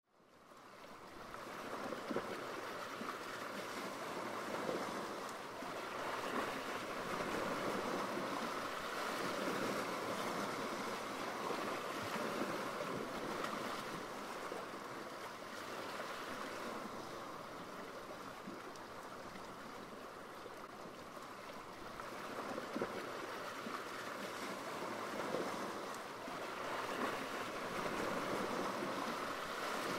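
Rushing sea water and breaking waves, a continuous wash that swells and eases, fading in over the first two seconds.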